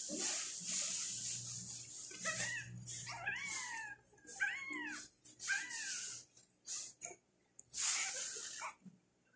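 Newborn tabby kitten mewing at a feeding bottle: about four short, high cries that rise and fall, in the middle. Bursts of hissy noise come between the cries, the loudest near the end.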